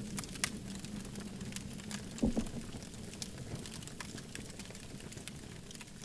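Wood campfire crackling: scattered sharp pops and snaps over a steady low rumble, with one louder, deeper pop a little over two seconds in.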